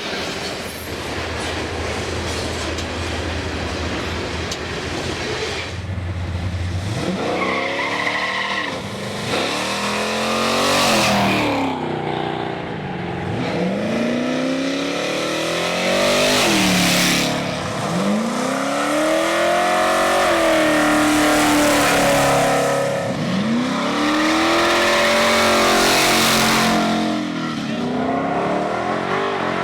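High-performance car engines accelerating hard, the pitch climbing and falling again and again as they rev and shift. A steady lower engine drone fills the first seven seconds before the revving begins.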